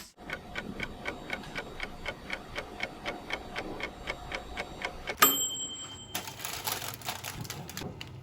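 Clock-like ticking: a rapid, even train of ticks, with a short high steady tone about five seconds in.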